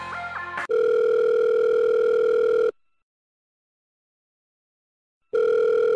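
Music cuts off, then a telephone ringback tone: a steady buzzing tone for about two seconds, a pause of about two and a half seconds, and the tone again. This is the line ringing at the far end while the call waits to be answered.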